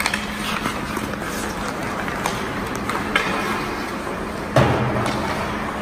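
Ice hockey in play: skates scraping the ice and sticks clacking against the puck and each other, with a heavier thump about four and a half seconds in, over a steady low hum.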